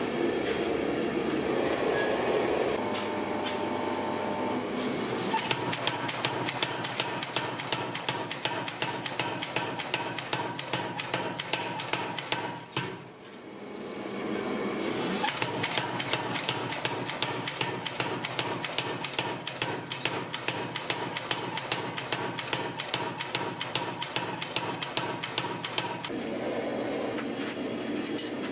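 Power hammer pounding a glowing axe blank in rapid, even blows, in two long runs with a short break between. A gas forge's steady roar is heard at the start and again near the end.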